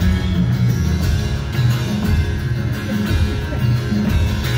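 Live instrumental passage of a folk-rock song: acoustic guitar strumming over a steady low pulse, with no singing.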